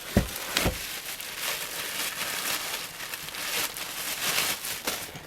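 Plastic packaging crinkling and rustling as ceiling-fan blade brackets are unwrapped and handled, with two knocks about half a second apart near the start.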